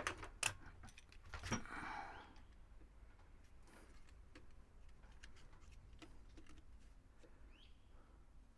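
Faint handling of small metal tools: several sharp clicks and a short scrape in the first two seconds, then only scattered light ticks.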